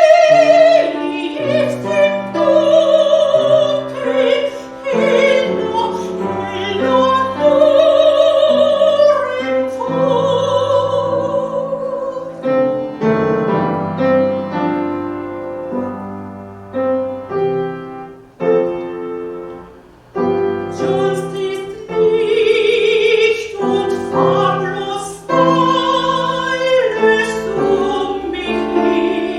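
A classical soprano sings with vibrato over piano accompaniment. About twelve seconds in the voice drops out and the piano plays alone, softly, for several seconds before the singing returns.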